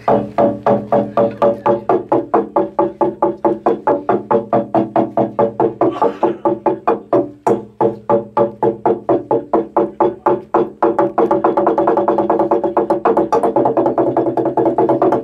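Garamut slit drum, a hollowed-out log, struck in a fast even beat of about four to five strokes a second, each stroke ringing with a deep wooden tone. About eleven seconds in the strokes quicken into a dense roll.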